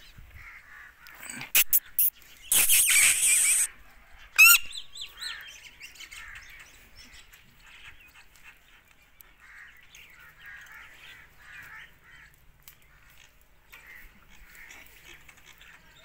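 Rose-ringed parakeet screeching: two short sharp calls, then a loud harsh squawk about a second long, then a shrill warbling call. Faint bird chatter continues after them.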